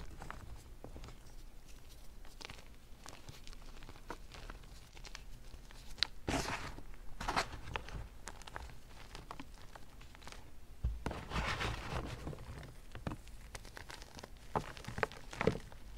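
Hand crushing and squeezing crumbled blocks of BSN gym chalk: irregular soft crunches and crumbles, with louder bursts of crunching about six seconds in, around eleven seconds, and near the end.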